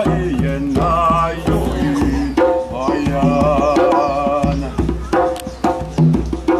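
Pair of djembe hand drums played in a busy rhythm of slaps and deep tones, with a wavering melody line held over them in two long phrases.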